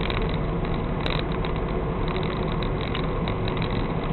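Car engine idling with a steady low rumble, heard from inside the stationary car's cabin.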